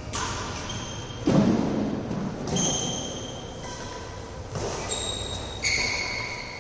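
Badminton doubles rally: about five sharp racket strikes on the shuttlecock roughly a second apart, the loudest about a second in, with brief high squeaks from shoes on the court floor. The sounds echo in a large hall.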